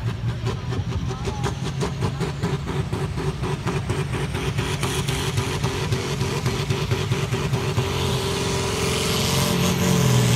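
Tractor-pull tractor's diesel engine running flat out under full load as it drags the weight sled, with a fast, even pulsing exhaust. It grows louder and harsher about eight seconds in.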